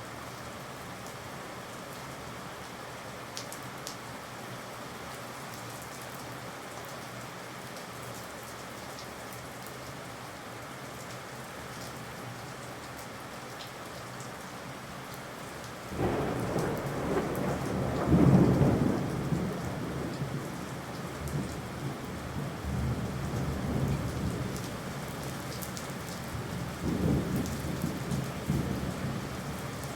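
Steady rain. About halfway through, a rumble of thunder sets in suddenly and is loudest a couple of seconds later, and further rolls of thunder go on over the rain to the end.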